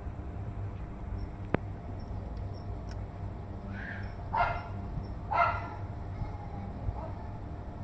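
Two loud, bark-like animal calls about a second apart near the middle, with a softer one before them and a faint one near the end. A single sharp tap comes about a second and a half in.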